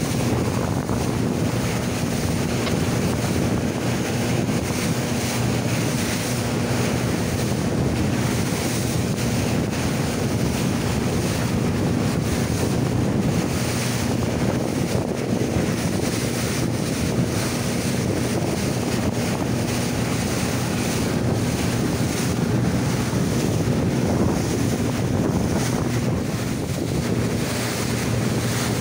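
Rigid inflatable boat under way: a steady engine hum beneath heavy wind buffeting the microphone and water rushing and splashing along the hull.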